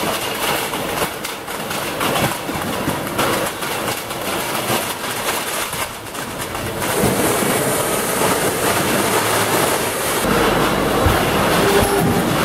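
Empty metal cans clattering and clinking against each other as they feed along a conveyor on an automatic filling line, over running machinery. About seven seconds in the sound turns to a louder, steadier machinery noise, and a low rumble joins near the end.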